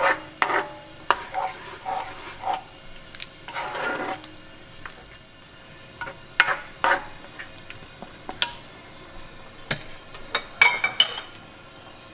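A spatula scraping and stirring through thick pork-blood stew in a cast-iron wok, in irregular strokes. The stew is being stirred continuously so the blood does not clump. A few sharp, ringing clinks come near the end.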